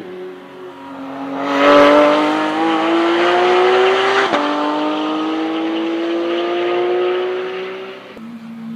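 Race car engine accelerating hard on track, its pitch climbing steadily, with a sharp upshift about four seconds in before it climbs again, then fading away near the end.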